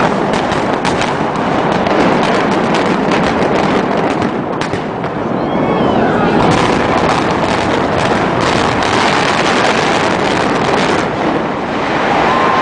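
Rapid string of explosive demolition charges going off, many sharp cracks and bangs packed over a continuous rumble as a large concrete arena and parking garage is imploded. The structure comes down near the end.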